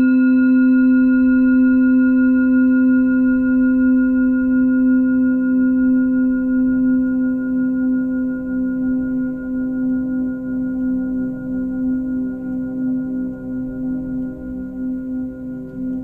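A singing bowl ringing after a single strike: one deep humming note with higher overtones, slowly fading, with a gentle wobble in loudness.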